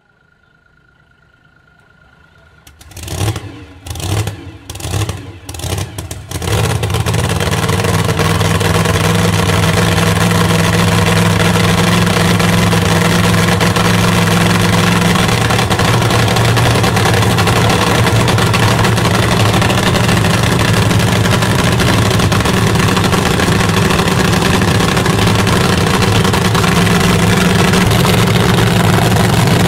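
Nitro-burning nostalgia funny car engine being started: a few uneven bursts about three seconds in as it catches, then a loud steady idle.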